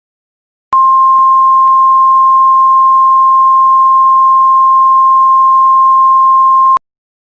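Mock Emergency Alert System attention tone: one steady, loud, pure beep held for about six seconds, starting and stopping abruptly, the signal that comes before a new alert message.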